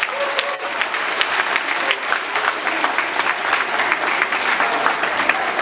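Auditorium full of schoolchildren applauding: dense, steady clapping.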